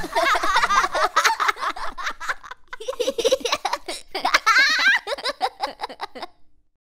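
Two cartoon baby characters laughing together in childlike voices, rapid giggling that stops suddenly about six seconds in.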